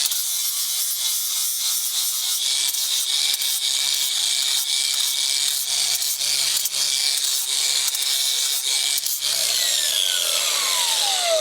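Angle grinder running and dressing the edges of freshly welded steel nuts, with a steady high whine and scraping as the disc bites. About nine seconds in it is switched off and the whine falls away as the disc spins down.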